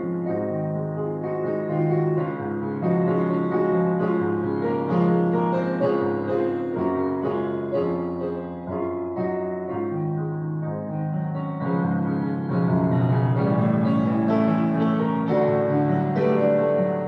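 Solo piano playing slow instrumental music in held chords and melody, growing a little louder about two-thirds of the way through.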